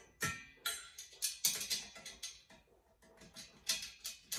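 Shiny metal tubing of a rolling cart's frame clinking and knocking as the pieces are handled and a bar is fitted to the side frame: a rapid run of sharp metallic clinks, some ringing briefly.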